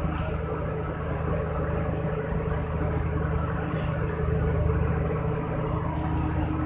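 Boat's machinery running with a steady low hum.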